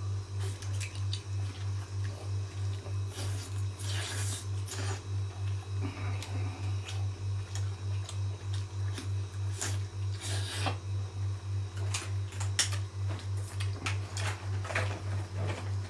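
Mouth-close eating sounds of someone working through spicy seafood: scattered clicks and squishy, crackly chewing noises. Under them runs a steady low hum that pulses about three times a second.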